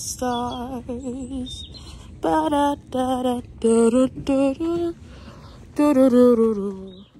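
A young woman singing a tune in short phrases close to the microphone, with wavering held notes and brief pauses between them.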